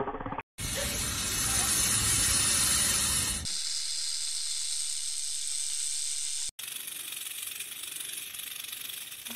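Snake hissing: a steady breathy hiss in three stretches split by brief silent gaps, the first the loudest. It follows the last half-second of a lion's roar.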